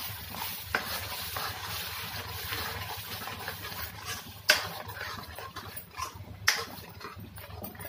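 Onion-tomato masala paste sizzling in hot oil in a metal kadhai as it is stirred with a spatula, being fried until the oil separates. Three sharp knocks of the spatula against the pan stand out, the loudest about four and a half seconds in, over a steady low hum.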